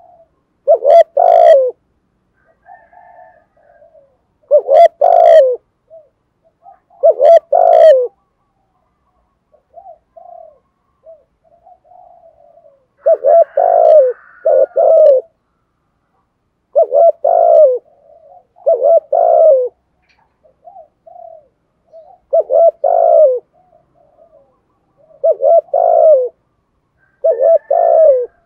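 Spotted dove cooing close to the microphone: short clusters of loud, low coos every few seconds, with softer coos in between.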